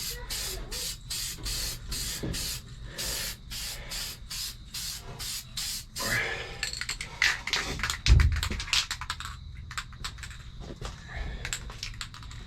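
Aerosol spray paint can sprayed in quick, evenly repeated short bursts of hiss, then in less regular spurts. A single heavy thump a little past the middle is the loudest sound.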